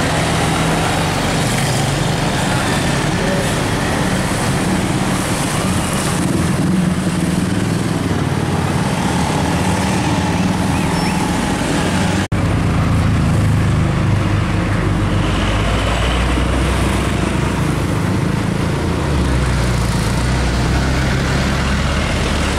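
Diesel truck engines running as heavy trucks pass in mixed road traffic with cars and motorcycles. After a cut about halfway, the engine rumble is deeper and stronger.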